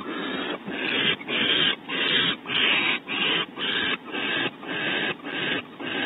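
Barn owl giving its harsh, hissing snore call over and over, each rasp about half a second long with short gaps, a little under twice a second; this snoring is the barn owl's food-begging call.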